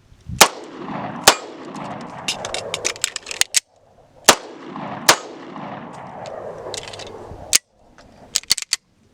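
Pistol shots on a shot-timer drill: four loud shots in two pairs, each pair about a second apart and the pairs about four seconds apart, with lighter sharp cracks in between and near the end. Wind rushes on the microphone between the shots.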